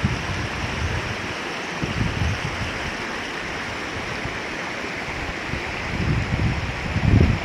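Shallow stream running over stones, a steady rushing hiss. Wind buffets the microphone in low rumbles at the start and again near the end.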